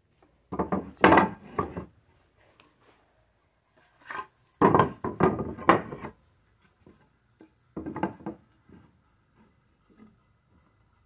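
Wooden boards knocking and clattering against each other as they are handled, in three bursts of several quick knocks.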